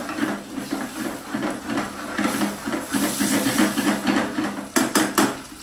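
A spatula stirring and scraping chicken curry in a hot frying pan, the sauce hissing and sizzling, with a few sharp knocks near the end.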